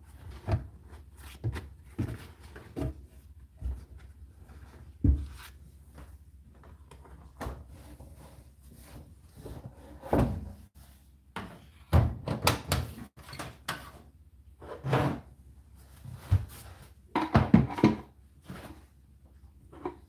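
Irregular knocks, thumps and rustles of laundry being handled in the drum of a stopped tumble dryer, with its door being moved. The loudest clusters come about halfway through and again near the end.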